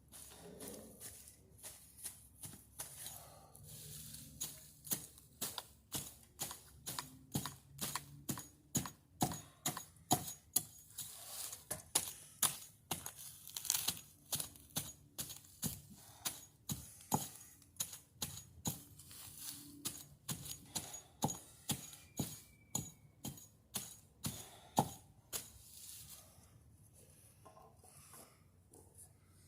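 A hand blade hacking at dry palm-trunk fibre: a long series of short, sharp crunching strokes, about two a second, some harder than others.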